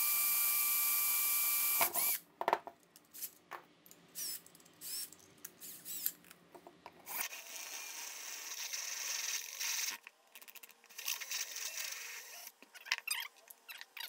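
Cordless drill running steadily with a small pilot bit for about two seconds, boring into the camera's plastic back cover. Scattered clicks and knocks follow while the bit is changed. The drill then runs again, first in a longer stretch and then in short bursts, as a step bit enlarges the hole.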